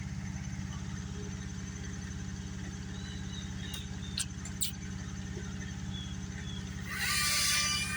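Aerial lift truck's engine idling steadily with an even pulsing drone. A few faint knocks come around the middle, and a loud rushing burst of under a second comes near the end.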